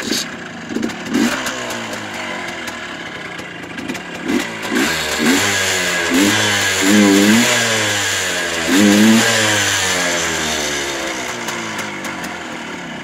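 Sova (Voskhod 3M-01) motorcycle engine catching and running, blipped up and down in rev several times. It runs slightly lean, which the owner puts down to its Chinese carburettor.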